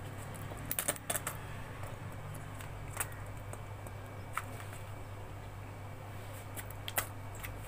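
Steady low hum with a few light clicks and taps from handling things at the counter: a quick cluster about a second in, then single clicks near three, four and a half and seven seconds in.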